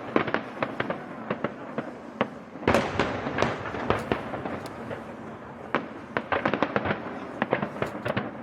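Fireworks going off in a rapid run of sharp crackling cracks. There is a heavier burst about three seconds in, and the crackling turns dense in the last few seconds.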